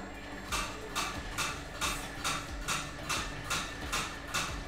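Even, metallic-sounding ticking from a workshop machine, a little over two ticks a second, starting about half a second in.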